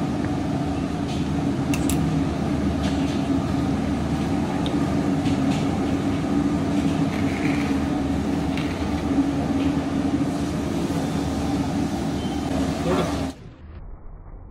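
Steady machine hum with a low, even tone under a noisy rush, cutting off abruptly near the end.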